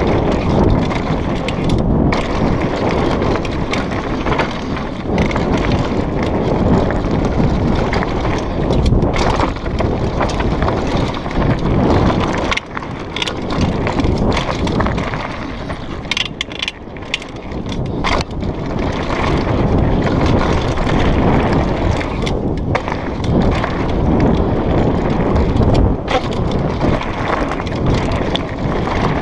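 Downhill mountain bike running fast over a rough dirt and gravel trail: a steady rumble of tyres on the ground, full of sharp rattles and knocks as the bike hits rocks and bumps, easing briefly about two-thirds through.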